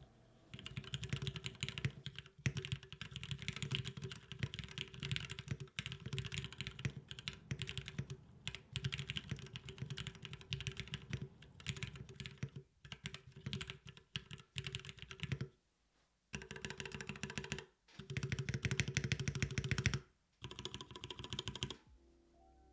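Typing on a top-mount Vicious 40 mechanical keyboard with lubed Cherry MX Black linear switches and PBT keycaps, in stock form with no tape or polyfill mods. It is a steady run of fast keystrokes, broken by a few short pauses. The builder finds it not too hollow.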